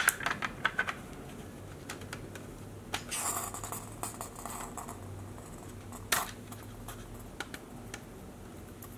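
Plastic clicks and scrapes of the ER2 pump pistol's CO2 end cap being twisted and pressed into the clear plastic grip, a quick run of clicks at first and scattered single clicks after. A brief hiss comes about three seconds in.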